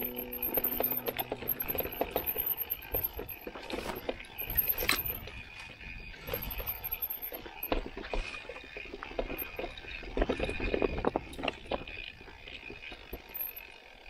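Santa Cruz Heckler electric mountain bike ridden over a rough grassy trail: irregular clicks, knocks and rattles from the bike and its tyres over the uneven ground.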